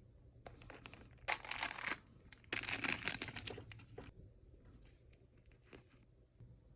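Packaging being crinkled and torn open by hand, in two loud bursts of crackling about a second and two and a half seconds in, then lighter crackles.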